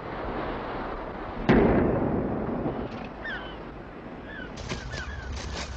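A lifeboat maroon going off to summon the crew: one sharp bang about a second and a half in, dying away over about a second. A few short bird chirps and some light clicks follow.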